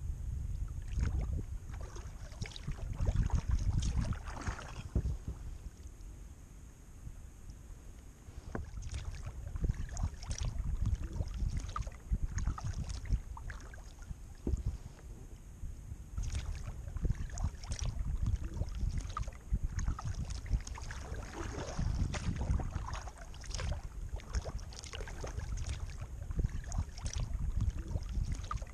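Kayak paddle strokes: irregular small splashes and drips of water off the paddle blades, over a steady low rumble of wind on the microphone.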